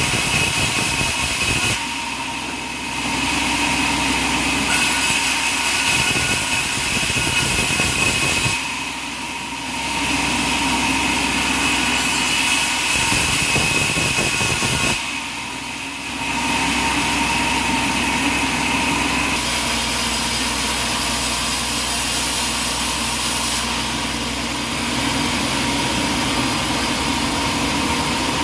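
Sawmill machinery running with a steady engine drone and a high whine. It eases off briefly three times, about 2, 9 and 15 seconds in.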